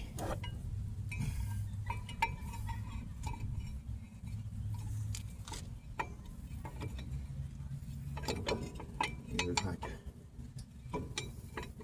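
Light metallic clinks and taps of steel brake and hub parts being handled and fitted, with a cluster of knocks near the end, over a steady low rumble.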